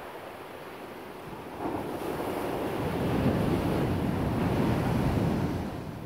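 Ocean surf with wind on the microphone: a steady rush of noise that swells about a second and a half in and eases off near the end.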